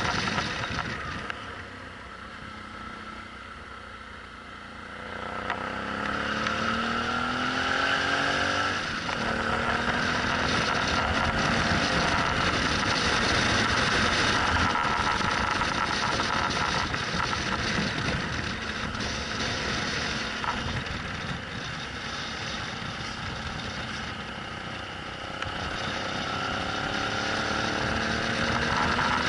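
Suzuki V-Strom 650's V-twin engine while riding, under steady wind and road rush. It eases off for the first few seconds, then rises in pitch as it accelerates, runs on steadily, and eases off and picks up again near the end.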